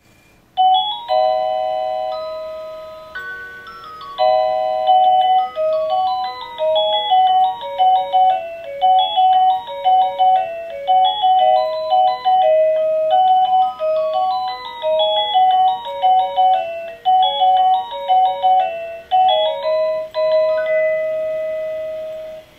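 Quartz Black Forest cuckoo clock playing one of its 12 hourly melodies from its electronic movement: a tune of clear, bell-like notes. It opens with a long fading note, pauses briefly, runs on in quick notes, and ends on a long held note that fades away.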